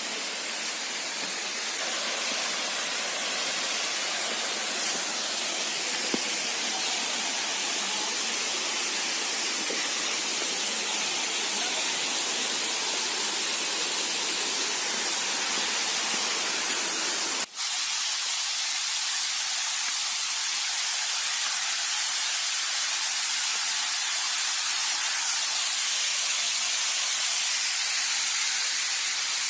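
Steady hiss of falling water from Bhimlat waterfall. It cuts out for an instant a little past halfway, then carries on with less low rumble.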